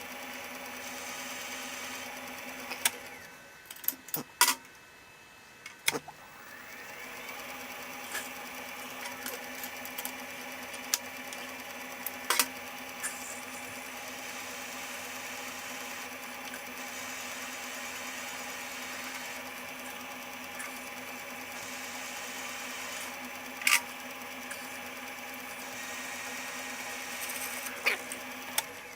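A South Bend Heavy 10 metal lathe running with a steady hum. It stops about four seconds in and starts up again about two seconds later, with scattered sharp metallic clicks and taps, and it shuts down near the end.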